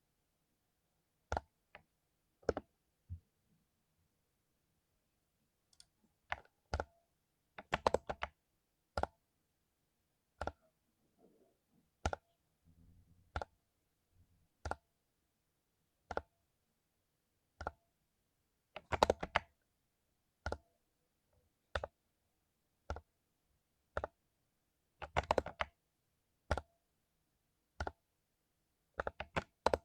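Mechanical keyboard with lubed Cherry MX Silver linear switches: single keystrokes about one every second, broken by three short flurries of several quick presses.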